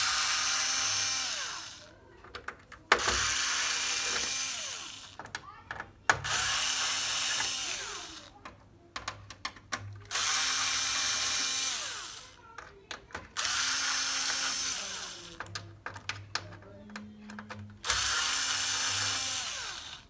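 Cordless electric screwdriver backing out small black screws, six runs of about two seconds each, the motor whining up at the start of each run and winding down at the end, with small clicks in the pauses between.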